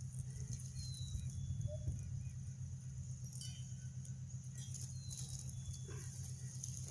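Wind rumbling on the microphone, with faint rustling and a few small clicks, about three seconds in and again near six seconds.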